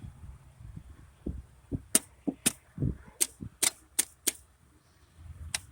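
A run of about a dozen sharp metallic clicks and taps, irregularly spaced, from hand work on the truck's ignition parts.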